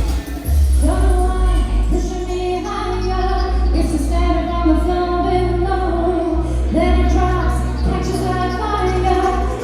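Vocal trio singing a pop song in harmony over a backing track with a heavy bass line.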